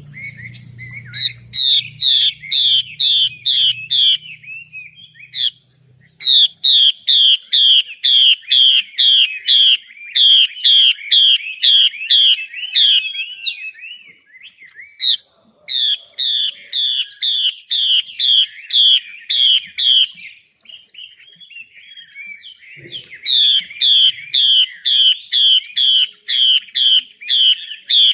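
Female Chinese hwamei (Chinese melodious laughingthrush) singing: loud phrases of repeated downward-slurred whistles, about two to three a second, with softer twittering in the short pauses between phrases.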